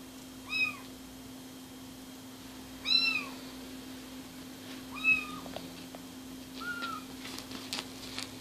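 Kitten mewing four times, short high-pitched mews a second or two apart, each rising and falling in pitch, the second the loudest. Near the end come light clicks and rustles as its claws catch on a blanket.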